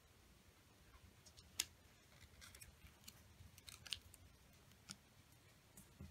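Faint crackles and taps of a paper sheet being folded over and creased flat by fingertips, with one sharp snap about one and a half seconds in and a cluster of crinkles around three to four seconds.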